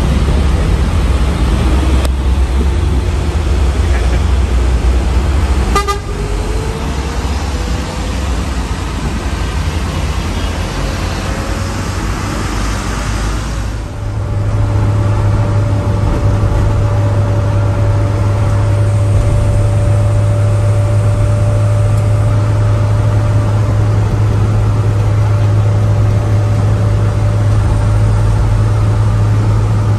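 Truck engine running with heavy road rumble, its pitch rising as it pulls away. From about halfway through it settles into a steady drone with a constant whine.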